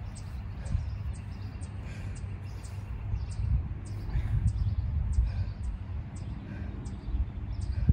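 Wind rumbling on the microphone, with a bird chirping short, sharp, high notes about twice a second.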